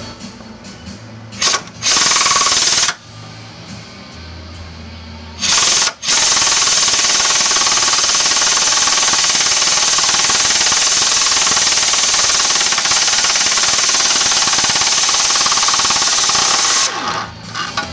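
Impact wrench hammering on a 17 mm subframe-plate bolt to undo it. A brief burst comes about a second and a half in, a second burst lasts about a second, and another short one comes around five and a half seconds. Then it runs for about eleven seconds straight until the bolt comes free.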